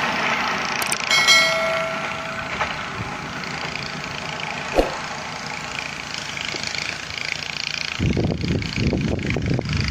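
Passenger train running away down the line, its wheel and rail noise fading steadily, with a brief ringing tone about a second in. About eight seconds in an irregular low rumble comes in.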